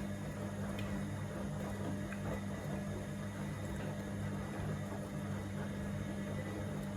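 Gorenje SensoCare washing machine running, a steady motor hum with a few faint clicks.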